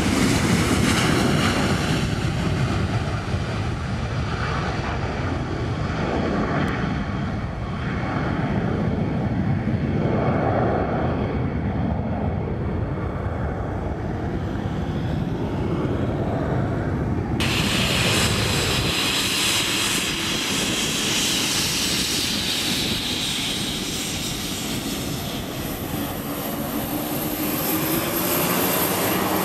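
McDonnell Douglas MD-83 jet airliner climbing out after takeoff, its rear-mounted Pratt & Whitney JT8D turbofans at full power, a loud deep rumble that slowly fades. About seventeen seconds in the sound cuts to an Embraer 190 jet on the runway, a higher engine whine sliding in pitch as it passes.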